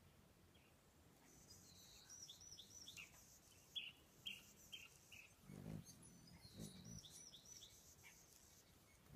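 Hummingbirds giving a quick series of short, high chirps in three runs, each note dropping slightly in pitch.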